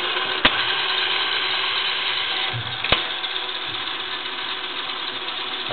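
Hardinge HLV-H toolroom lathe running at about 455 RPM on a 1 mm-pitch metric threading pass, its lead screw driven by a servo motor: a steady mechanical whir with a faint steady hum. Two sharp clicks stand out, about half a second in and about three seconds in.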